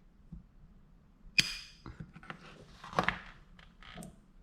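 Spot welding pen's flat tips firing a PCB spot welder pulse onto a fuse: a sharp crack about a second and a half in with a brief crackle after it, then a smaller snap around three seconds. With only partial contact the pulse makes a hot spot that burns off the fuse.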